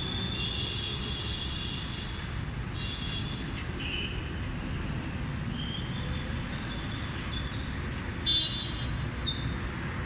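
Steady low rumble of road traffic, with several brief high-pitched tones over it and a short, louder high toot about eight seconds in.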